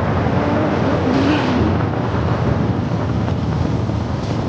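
Steady rumble of vehicle and wind noise on the microphone, with a brief faint pitched sound about a second in.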